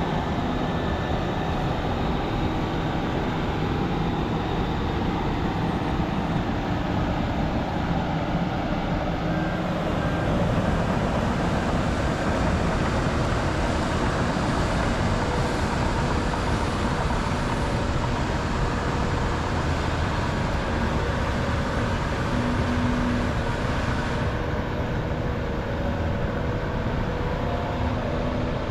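Heavy diesel earthmoving equipment running steadily at work: a large excavator and haul trucks.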